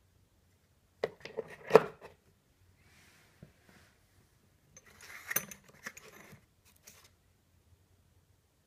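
Small steel lathe accessories handled and set down: a clatter of metal clicks and knocks about a second in, with one sharp knock the loudest, then a second, lighter cluster of clinks and rustling around five to six seconds in.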